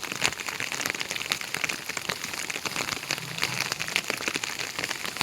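Heavy rain falling steadily, a dense mix of many separate drop strikes.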